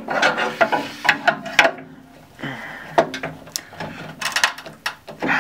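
Steel pry tool levering a die-cast metal panel away from the housing, breaking it free of its silicone sealant: a run of sharp metallic clicks, knocks and scrapes, easing briefly about two seconds in before more knocks.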